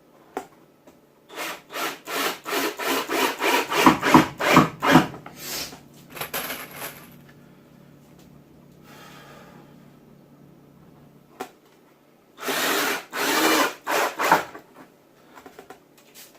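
Quick back-and-forth rubbing strokes on wood, about four a second for several seconds, then a pause and a couple of longer scrapes near the end.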